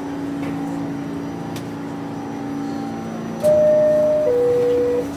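New York City subway car's door-closing chime, two descending tones, the first about a second long and the second a little shorter, starting about three and a half seconds in. It is the warning that the doors are about to close, and it sounds over the steady hum of the train stopped at the platform.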